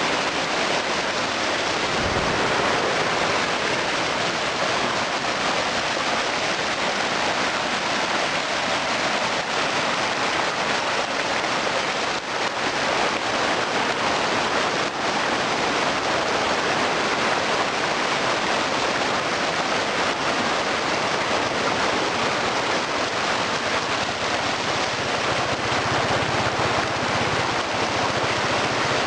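Steady rush of a fast-flowing river, an even unbroken noise of running water.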